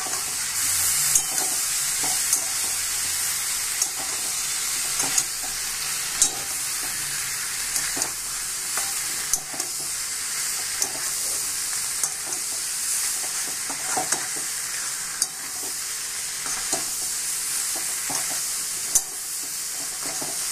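Soya chunks, onion and capsicum sizzling in sauce in a wok while a metal spatula stirs and scrapes, with sharp clacks of the spatula against the pan every second or so.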